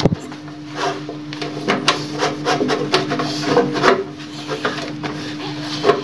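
Stainless-steel gas stove top being scrubbed and wiped by hand, irregular rubbing and scraping strokes with sharp knocks here and there. A steady low hum runs underneath.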